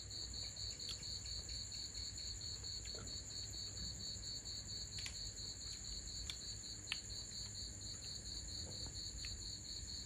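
Night insects, crickets chirping: a high pulsing chirp at about five pulses a second over a continuous higher trill, with a few faint clicks.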